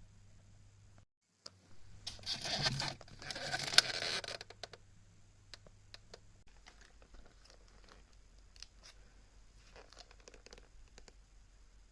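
Plastic food packaging crinkling and tearing in two loud stretches, about two and three and a half seconds in, then light clicks and taps of handling.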